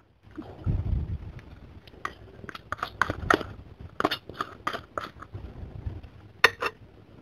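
A metal spoon scraping and clicking against a small plastic cup as thick chili sambal is spooned out onto a bowl of soup. There is a soft thud about a second in, then a run of quick clicks and scrapes, and two sharper clicks near the end.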